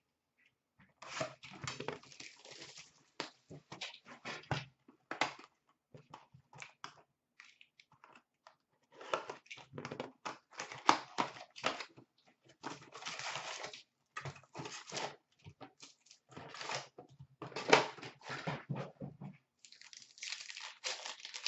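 Shrink wrap and cardboard of an SP Authentic hockey card box being torn open by hand, followed by the foil packs being handled: irregular crinkling and tearing in bursts with short pauses.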